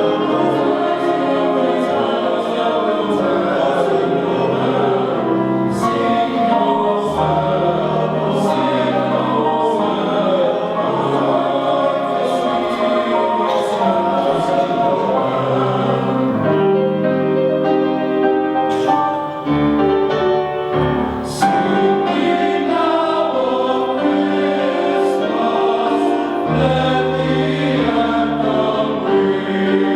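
A high school men's chorus singing in harmony, with sustained low male voices moving through chords.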